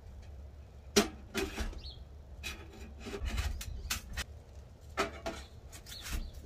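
Metal stovepipe sections knocking and scraping as they are slotted together and pushed onto a wood stove's flue collar: about six sharp knocks spread over several seconds.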